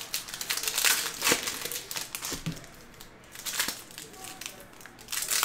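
Foil wrappers of trading-card packs crinkling and crackling as they are handled, in irregular rustles.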